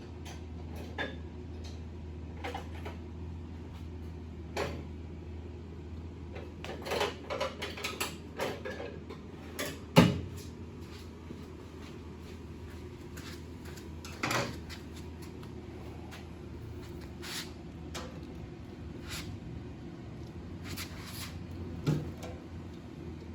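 Tools and metal parts clicking, clinking and knocking during hands-on disassembly of a motorcycle. There is a flurry of small knocks a few seconds in and one sharp knock about ten seconds in, over a steady low hum.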